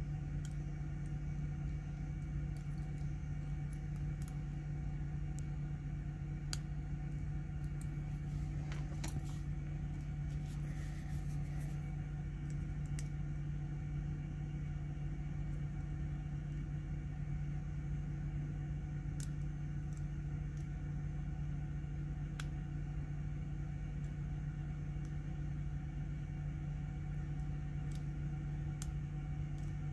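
Small scattered metallic clicks of a hook pick and tension wrench working the pins of a padlock, bunched around a third of the way in. A steady low mechanical hum runs under them throughout and is the loudest sound.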